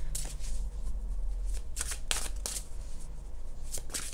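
A deck of Mystical Wisdom oracle cards being shuffled by hand: a string of quick, irregular papery flicks and riffles.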